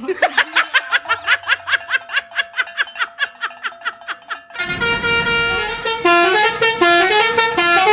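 Telolet bus horn, a multi-note musical air horn: first a rapid run of short chirping toots, about five a second, over one steady tone, then from about four and a half seconds in a tune of held notes stepping up and down.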